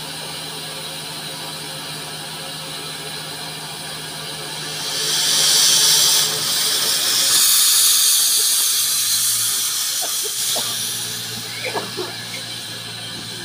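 Andrew Barclay saddle-tank steam locomotive letting off a loud hiss of steam for several seconds as it sets off, followed by a few short squeals near the end.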